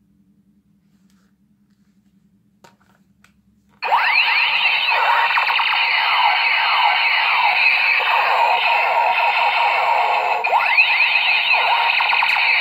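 Toy gun's electronic sound effect through a small speaker. After a few faint clicks, a loud, dense stream of many overlapping sweeping tones starts abruptly about four seconds in and keeps going without a break.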